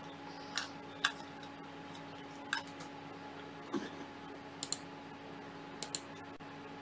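Light, scattered clicks and taps, some in quick pairs, over a faint steady hum.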